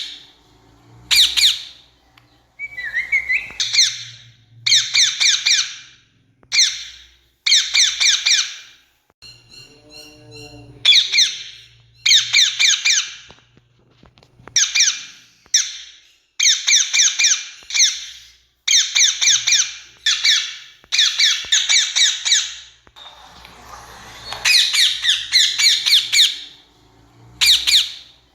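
Rose-ringed parakeet giving its harsh, shrill screeching call, repeated in bursts of rapid notes, each about a second long with short pauses between.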